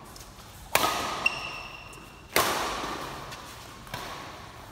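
Badminton rackets striking a shuttlecock in a doubles rally: four sharp hits, two of them loud smash-like cracks, each ringing on in the echo of a large sports hall.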